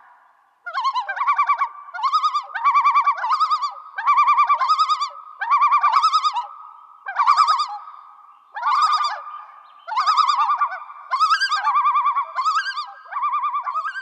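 Common loon calling: a long series of rapid, quavering phrases, roughly one a second, each wavering quickly up and down in pitch.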